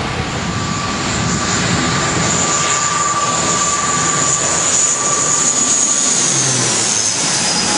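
ATR twin-turboprop airliner passing low overhead on landing approach. The engines and propellers give a loud steady whine that drops in pitch near the end as the plane goes past.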